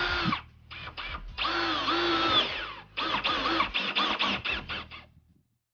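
Power drill run in bursts into a vehicle's sheet-metal roof: a long run, a few quick trigger taps, another long run with its pitch sagging and recovering under load, then a string of short rapid bursts before it stops.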